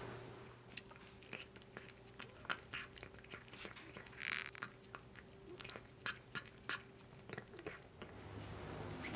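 A cat eating from a dish: irregular small crunching and chewing clicks, several a second.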